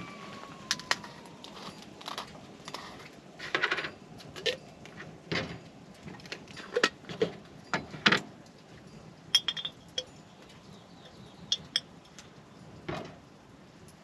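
Irregular clinks and taps of a glass jar, its screw lid, a metal spoon and a mug being handled and set down on a camp table, a few of them ringing briefly.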